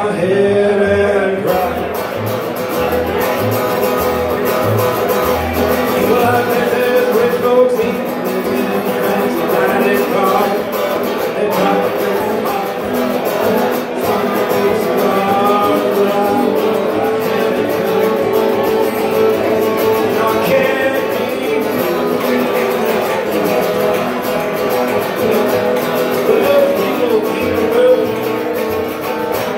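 A man singing a country song while strumming an acoustic guitar, his voice and guitar amplified through a microphone and PA.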